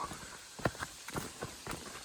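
Footsteps of people walking on a hiking trail: a run of short, sharp steps, roughly two or three a second, uneven in spacing.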